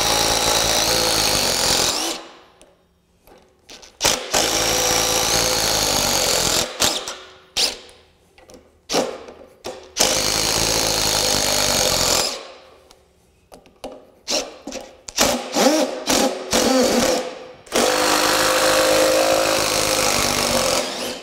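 DeWalt Atomic compact impact driver hammering as it backs long screws out of a wooden beam: about five runs of two to three seconds each, separated by short pauses.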